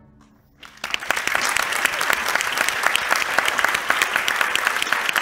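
The band's last chord fades to a brief hush. About a second in, the audience starts applauding, a dense, steady clapping of many hands.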